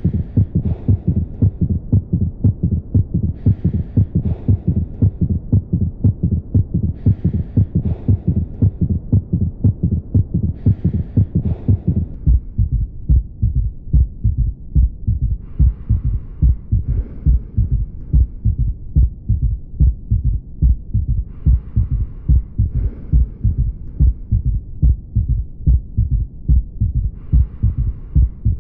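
Recorded heart sounds from cardiac auscultation: a steady, repeating run of low thuds in a gallop rhythm, the extra beat being a third heart sound (S3). A faint higher hiss comes and goes every few seconds, and the recording changes character about twelve seconds in.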